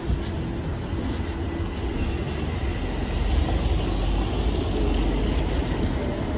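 City street traffic on a wet road: cars passing with tyre hiss over a steady low rumble that gets a little louder about three seconds in.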